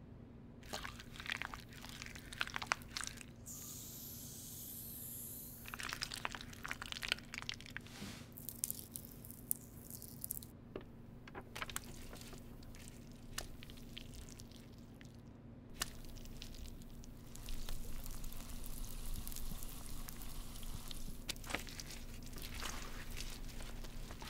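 Wet squishing and crackling of a carbonated bubble sheet mask and its gel, in clusters of small clicks, with a stretch of high hiss about four to five seconds in. A steady low hum runs underneath.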